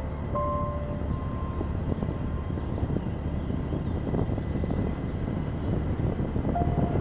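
Steady low rumble of a moving vehicle, with a few held notes of background music near the start and again near the end.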